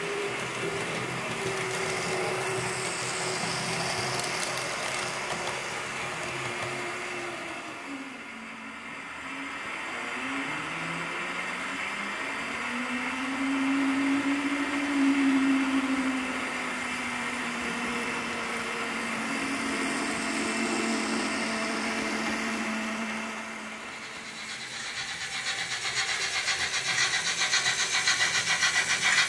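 H0-scale model trains running on the layout: electric motors whining, the pitch gliding up and down with speed, over the rolling of wheels on track. From about 25 s in, a fast, even rhythmic beat grows louder as a model steam tank locomotive approaches.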